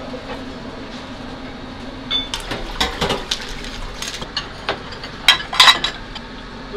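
Asari clam shells clinking and clattering against a metal saucepan and a bowl as the sake-steamed clams are tipped out, with the loudest run of clinks about five seconds in. Under it runs a steady kitchen hum.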